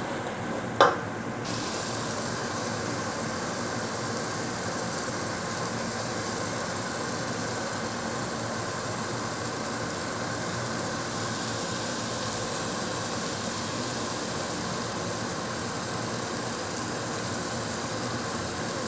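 A steady, even hiss with a low hum running at a constant level, after a single click about a second in.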